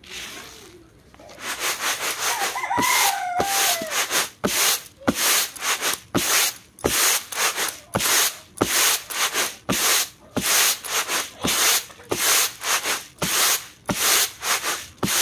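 Rice being winnowed on a round bamboo tray: rhythmic swishing of grains tossed and caught, a little under two strokes a second, each with a light tap, starting about a second in, as the unhusked paddy grains and husk dust are shaken out. A chicken calls briefly about three seconds in.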